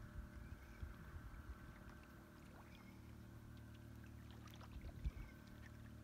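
Faint, steady low motor hum, with a few light clicks and a soft thump about five seconds in.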